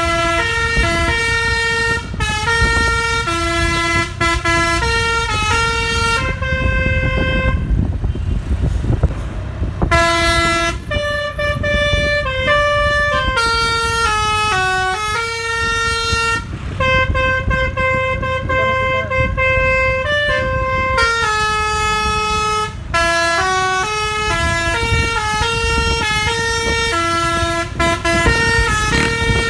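Bus 'telolet basuri' multi-tone air horns played by hand from a keyboard, sounding a melody of held and stepping notes over a steady low rumble. The horns fall silent for a few seconds about six seconds in, then resume.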